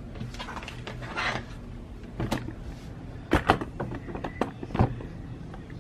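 Handling sounds on a craft table: soft rustles, then a few sharp knocks and clicks as a sheet of vinyl and a ruler are moved about on a cutting mat, over a faint steady low hum.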